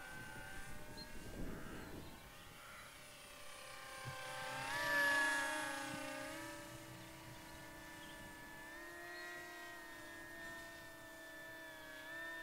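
HEE Wing T-1 Ranger's twin brushless electric motors and propellers whining in flight. The whine swells to its loudest about five seconds in, rising a little in pitch there, then settles back to a steady drone.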